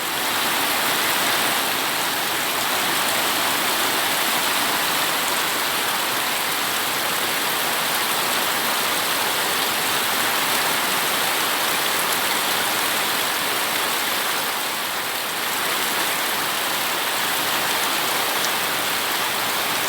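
Heavy rain pouring down steadily, a constant even hiss of a tropical downpour.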